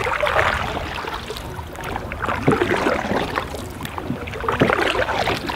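Canoe paddles dipping and pulling through river water, a short splash with each of several strokes, over a steady rush of moving water.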